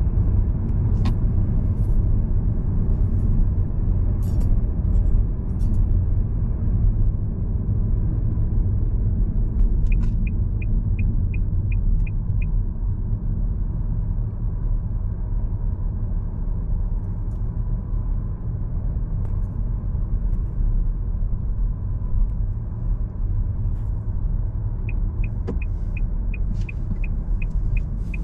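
A car driving along the road: a steady low rumble of tyres and engine. Twice, a quick regular ticking comes in at about three ticks a second, once around ten seconds in for a couple of seconds and again near the end.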